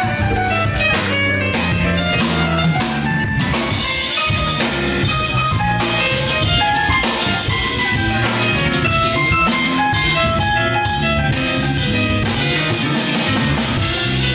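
Live band playing with a steady beat: drum kit, congas, electric guitars and keyboard.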